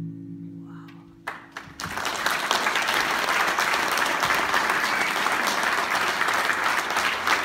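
The last acoustic guitar chord of a song rings and fades. Then an audience breaks into steady, sustained applause about two seconds in.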